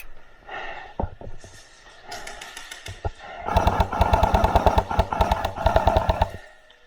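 Airsoft gun firing a full-auto burst of about three seconds: a rapid string of shots over a steady whine, starting about halfway in and cutting off suddenly. A few single knocks come before it.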